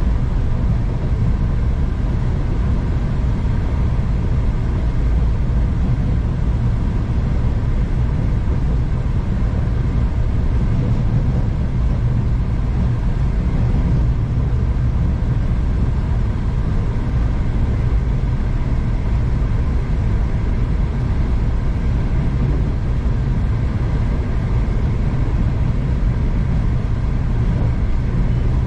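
Steady low rumble of a passenger train in motion, heard from inside the carriage, with no distinct clicks or changes.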